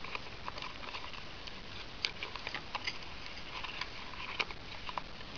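Cardboard toy packaging being handled: scattered small clicks, scrapes and crinkles as fingers work the cardboard insert at the bottom of the box loose.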